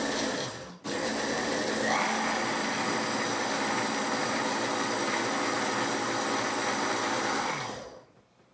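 Electric hand blender running in its mini-chopper bowl, puréeing cooked asparagus with fresh cheese. It stops for a moment just under a second in, restarts, rises in pitch about two seconds in, then runs steadily and cuts off near the end.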